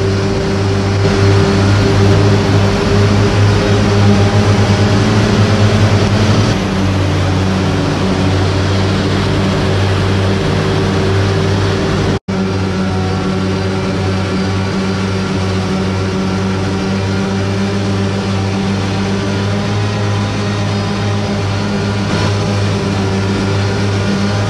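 Steady, loud machine hum with a constant pitch over a noisy mechanical wash, a little louder for the first few seconds. About halfway it cuts out completely for a split second, then resumes much the same.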